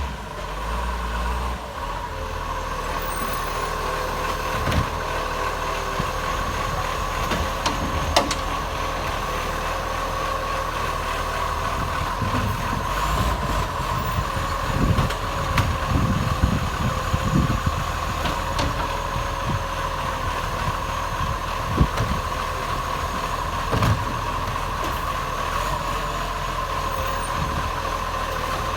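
Acco garbage truck with a leaking exhaust running near idle, with a steady whine over a low engine hum. A cluster of knocks and clunks comes in the middle, and there are a few sharp cracks.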